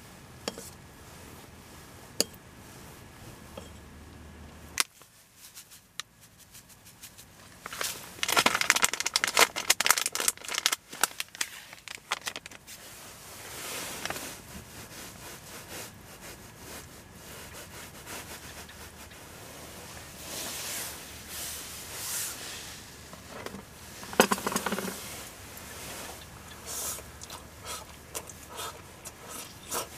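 Chopsticks stirring yakisoba in a pan: bursts of crackling and scraping, loudest about eight to twelve seconds in and again briefly later on.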